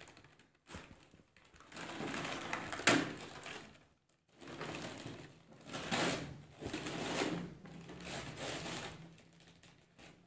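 Utility knife slicing through tape and gift-wrap paper on a cardboard box in short irregular scratchy strokes, with paper crinkling and a sharp click about three seconds in.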